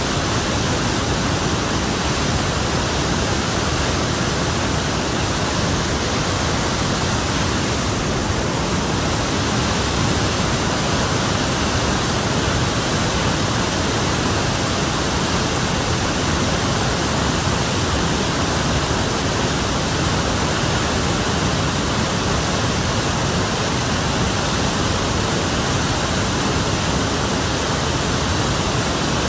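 Waterfall in spate and the muddy, flooded river below it, rushing with a loud, unbroken roar of water; the falls and river are swollen with monsoon floodwater.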